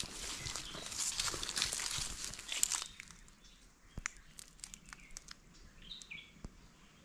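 Footsteps crunching through dry grass and leaf litter, a dense crackle for about three seconds and then fainter, scattered steps. A bird gives a few short chirps near the end.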